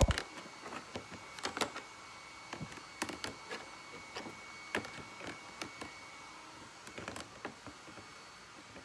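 A loud knock, then scattered light clicks and taps, as of small hard objects being handled, over a faint steady high whine.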